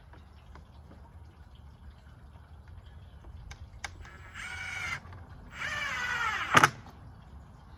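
Cordless drill driving screws through a plastic litter box into wood: two short runs of the motor, the second longer and louder with its pitch sinking as it goes, ending in a sharp knock. A few light clicks of handling come before.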